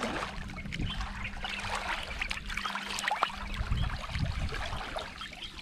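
River water sloshing and splashing right at the water's surface as people wade through it, with many small irregular splashes and a faint steady hum underneath.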